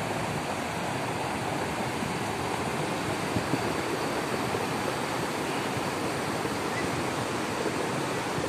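Muddy floodwater rushing down a wide riverbed in a flash flood, a steady, unbroken rushing noise.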